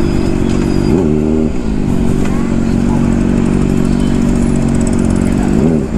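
Honda CBR600RR's inline-four engine running at low speed in traffic, with two brief rises and falls in revs, about a second in and near the end.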